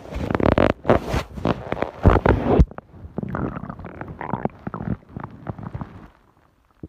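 A stomach growling: loud, irregular gurgling rumbles for the first few seconds, then weaker gurgles that die away near the end.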